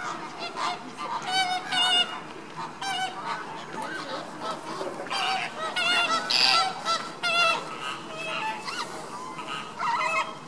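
Flock of Caribbean flamingos calling: many short honking calls overlapping one another without a break.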